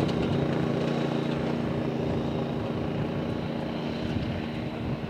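ATV (four-wheeler) engine running steadily under way, an even low hum with no change in pitch.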